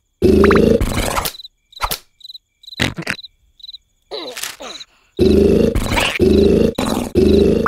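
Cartoon snoring: loud snores in repeated bursts about a second long. They break off about a second in, leaving crickets chirping and two sharp knocks, then start again about five seconds in.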